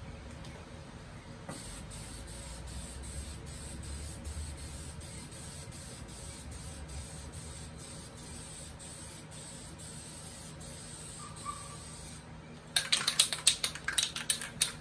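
Aerosol spray-paint can hissing steadily for about ten seconds as it sprays. Near the end the spray stops and a burst of quick, loud rattling clicks follows, the mixing ball knocking inside the can as it is shaken.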